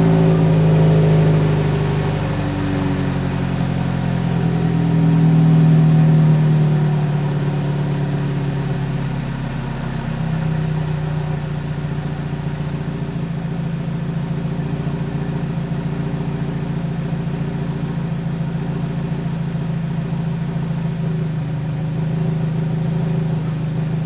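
2017 Subaru BRZ's flat-four engine idling after a cold start, heard at the tips of its Corsa cat-back exhaust. The fast cold idle eases down over the first ten seconds or so, then holds a steady idle.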